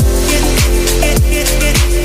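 Electronic background music with a steady beat: a deep kick drum that drops in pitch about every 0.6 seconds, under held synth tones and quick hi-hats.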